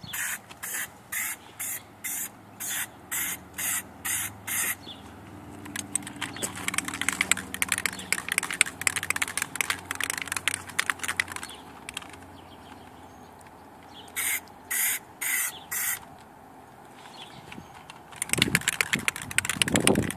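Aerosol can of Plasti Dip rubber coating sprayed through a trigger can handle: short hissing bursts at about two a second, then a longer crackling, spitting stretch of spray, and another run of four short bursts. A louder rush of noise comes near the end.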